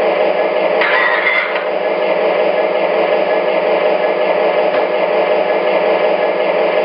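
MTH Premier GP-35 model diesel locomotive's Proto-Sound 2.0 speaker playing a steady diesel engine idle while the locomotive stands still, with a brief higher-pitched sound about a second in.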